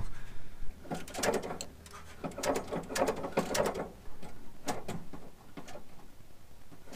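Metal clicking and rattling around the carburetor's throttle linkage and accelerator cable as the cable is hooked in and worked, a run of clicks and short rattles that thin out after about five seconds.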